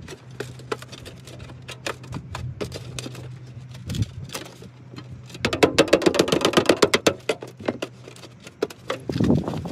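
Soft aluminium roof flashing being pressed and moulded by gloved hands around a pipe on clay tiles, crinkling and crackling. A denser, louder spell of crumpling comes a little past halfway, and a last burst comes near the end.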